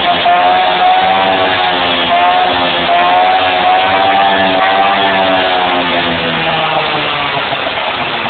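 Gilera DNA scooter engine running through an aftermarket exhaust, held at fairly high revs with the pitch wavering up and down. It dips briefly about two seconds in and eases slightly near the end.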